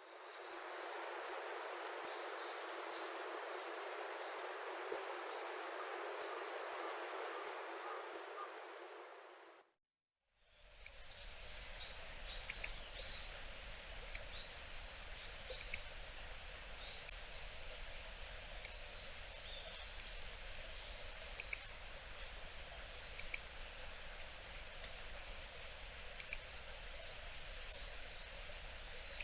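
Hawfinch giving short, sharp, high-pitched call notes: a quick series of about ten, then after a brief silence single calls roughly every second and a half.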